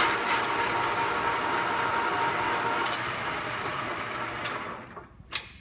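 Cadillac 14" x 28" geared-head engine lathe running with a steady gear whine. It dies away as the machine stops near the end, followed by a single sharp click.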